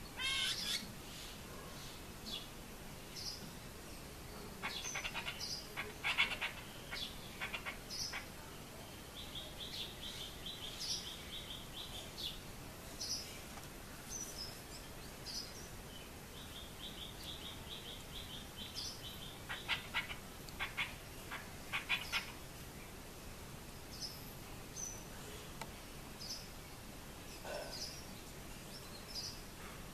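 Chestnut-tailed starlings calling: scattered short high chirps, two bursts of rapid scratchy notes, and two runs of a fast, even trill lasting about three seconds each.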